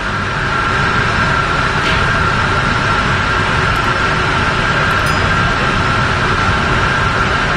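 Loud, steady machinery drone: a low rumble with a constant high-pitched whine on top, unchanging throughout.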